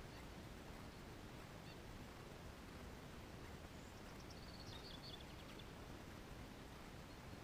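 Faint outdoor ambience with a steady low hiss; a short, faint run of high bird chirps a little past halfway, and a couple of fainter high peeps about two seconds in.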